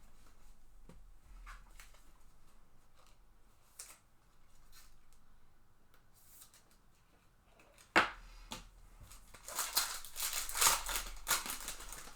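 Trading cards being handled and slid past one another, with light rustles and ticks. A sharp click comes about eight seconds in, followed near the end by a longer stretch of crisp rustling and crinkling.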